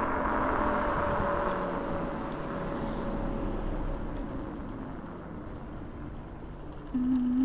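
Kaabo Wolf King GT electric scooter riding with wind and road noise and a thin electric hub-motor whine that sinks and fades as the scooter slows. About seven seconds in, a louder motor whine starts suddenly and begins to climb in pitch as the scooter pulls away again.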